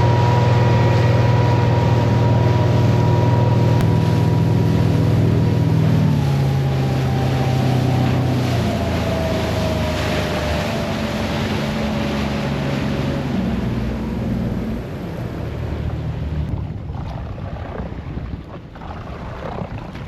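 Boat motor running under way, with wind on the microphone. About six seconds in, the engine's pitch drops as it throttles back. The engine tone fades out around fifteen seconds in, leaving wind and water noise.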